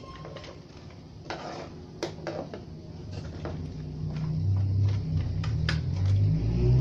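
Light plastic clicks and knocks as the plastic disc-loader frame of a VCD unit and its ribbon cables are handled, over a low rumble that grows louder about four seconds in.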